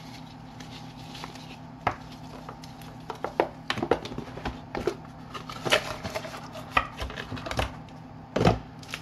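Hands handling unboxing items on a tabletop: a fabric head strap, cardboard packaging and a small plastic bag, giving scattered light clicks and taps with a louder knock near the end, over a steady low hum.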